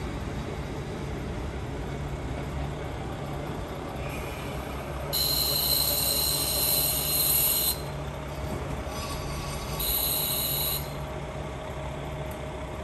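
Diesel railcar train pulling away, its engine running as a steady low drone. High-pitched wheel squeal comes in about five seconds in for two to three seconds and again briefly about ten seconds in.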